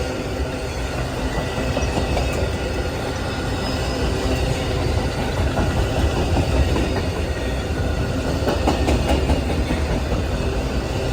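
Amtrak Auto Train cars rolling past at speed: a steady rumble of wheels on rail, with light clicking over the joints.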